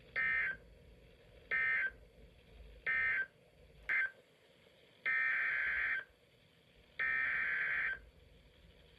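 Emergency Alert System SAME data bursts, the warbling digital tones that carry the coded alert. Four short bursts, about a second apart, fit the end-of-message code closing the severe thunderstorm warning. Two longer bursts of about a second each follow, fitting the header code for the next warning.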